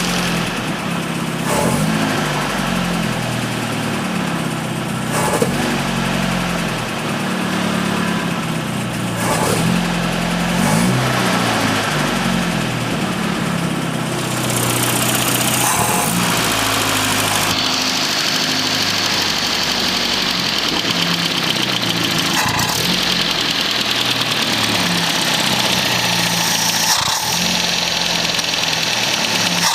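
Land Rover Series III's carburetted petrol engine running at idle, its speed wavering up and down, with a few short knocks.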